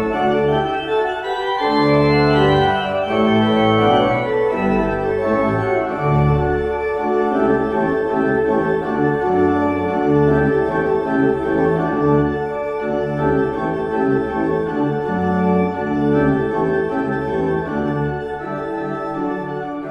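Pipe organ playing sustained chords over a moving bass line.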